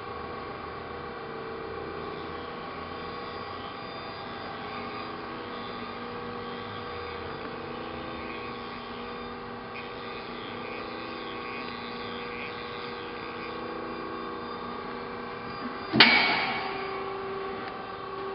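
Amada RG-50 hydraulic press brake running, its pump and motor giving a steady hum. Near the end there is one sudden loud bang that rings off over about a second.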